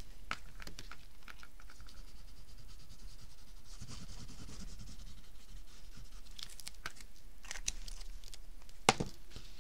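Quiet paper-handling sounds: green card stock shifting and rustling on the table while liquid glue is dabbed onto a flap, with faint scattered ticks and one sharp tap near the end.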